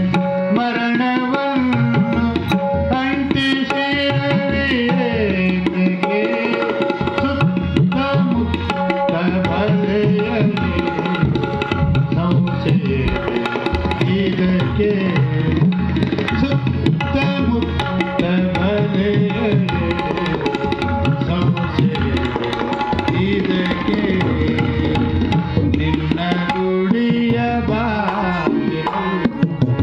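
Tabla and harmonium playing a devotional song, the tabla keeping up a steady run of strokes under the held harmonium notes, with a man's voice singing a gliding melody over them.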